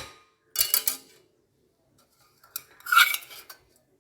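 Kitchenware clattering: metal utensils knocking and scraping against a pot and dishes in two short bouts, about half a second in and again about two and a half seconds in.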